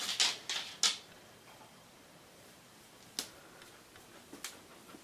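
White shepherd dog panting in quick breaths for about the first second, then a few faint, separate clicks.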